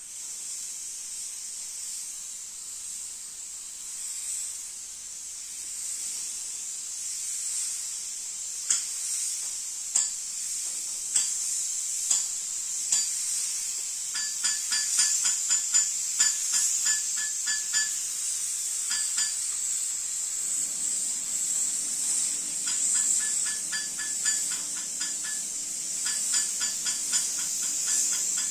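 Compressed-air gravity-feed spray gun hissing steadily as it sprays paint onto a car bonnet. Runs of rapid ticking come and go in the second half, and a low hum joins about two-thirds of the way in.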